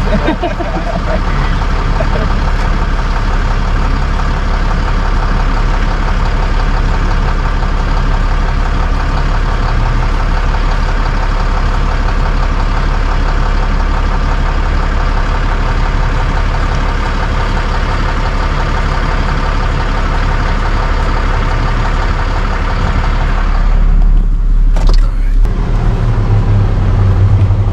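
Truck engine running steadily, heard from inside the cab as the rig moves slowly through a parking lot. Near the end the driver's door opens and the engine sound gets louder and deeper.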